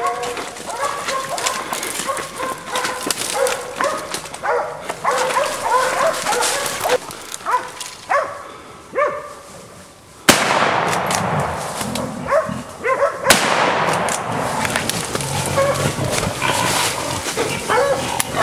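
Hunting dogs barking and baying in short repeated calls, with one loud rifle shot about ten seconds in.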